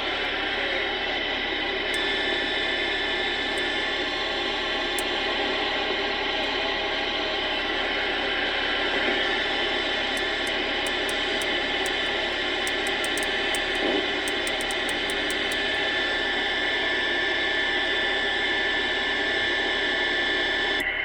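Steady static hiss from a CB radio's speaker with the squelch open, with faint steady heterodyne whistles in the band noise.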